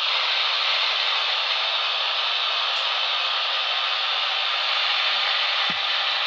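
Long model freight train climbing a model-railway helix behind two model AC6000 locomotives: a steady, even whirring hiss of wheels rolling on track, with one faint low knock near the end.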